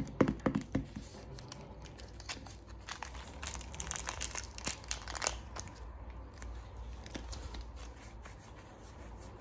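Thin plastic wrapper on a packet of slime crinkling and tearing as it is peeled off by hand. It opens with a few soft knocks in the first second, the loudest part, as the packet is pressed on the table; then comes dense crinkling for a few seconds that thins out near the end.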